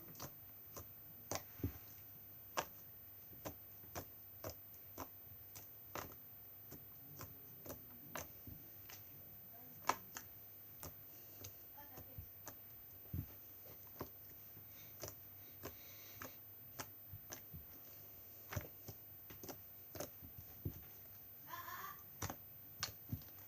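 Glossy homemade slime being handled, making sharp, irregular small clicks and pops about one or two a second as it is pressed and stretched.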